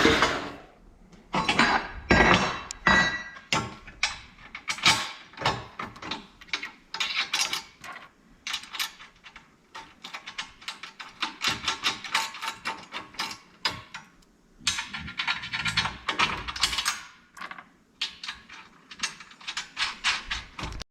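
Hand tools working on metal hardware: runs of quick, sharp ratchet-like clicking broken by knocks and short pauses, as brackets and bolts for a muffler skid plate are fitted.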